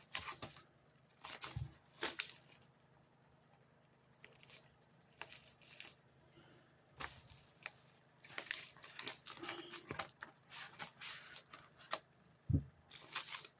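A mail package being torn open and handled, in short bursts of tearing and crinkling with pauses between. There is a single soft knock near the end.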